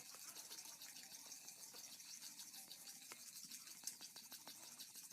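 Faint, quick stirring of a xanthan gum, glycerin and water mixture in a small container, a run of rapid scraping ticks several a second as the mixture is worked to thicken it into a gel.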